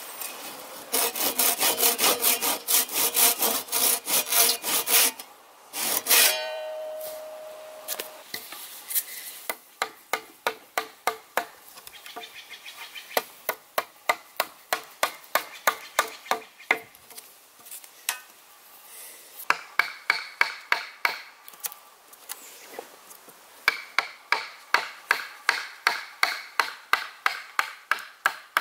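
Hand saw cutting through a red alder log in quick, dense strokes, with a brief sharp knock and short ring about six seconds in. After that comes a long run of regular, separate strokes, about three to four a second, as a chisel works out a notch in the log.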